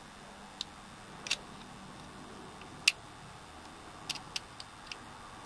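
Small, sharp metal clicks and taps as a tool works at the circlip holding a padlock's lock cylinder. They come irregularly, the loudest about three seconds in, with a quick cluster of several clicks near the end.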